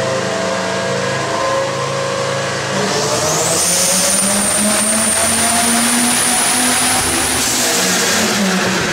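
Twin-turbocharged Dodge Viper GTS V10 engine running hard on a chassis dyno. It holds steady at first, then the engine note climbs steadily in pitch from about three seconds in, during a dyno pull. A high turbo whine rises in with the climb and holds until near the end.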